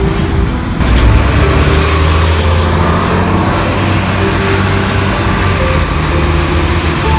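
City street traffic with a bus running close by: a steady low engine rumble under a continuous road noise, a little louder from about a second in.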